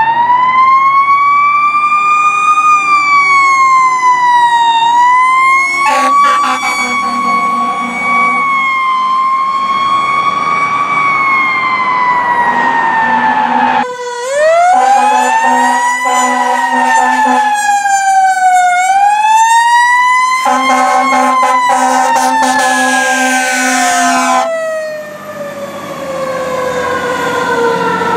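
Fire engine sirens wailing, rising and falling in slow sweeps, with long stretches of repeated air horn blasts over them. Near the end a siren winds down in one long slow fall.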